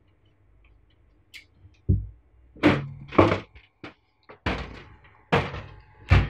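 Handling thunks and knocks as the perforated metal side cover of a PC case is taken off and set aside: about six separate impacts, some with a short ring.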